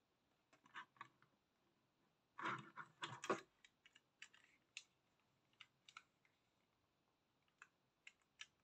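Faint, scattered clicks and taps, with a short cluster of louder knocks about two and a half seconds in.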